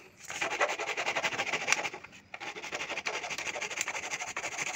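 A hacksaw blade sawing through the plastic rear mudguard of a Hero Splendor motorcycle: a steady rasping scrape, with a short pause about two seconds in.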